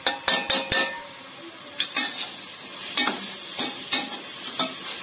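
A few ringing metal clinks of a perforated steel ladle against a steel plate as spice powders are scraped into the pot. Then the ladle scrapes and stirs in a pressure cooker while the onion-tomato masala sizzles in oil, being fried until the oil separates.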